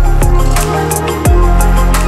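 Background electronic music with a steady kick-drum beat and a sustained deep bass line.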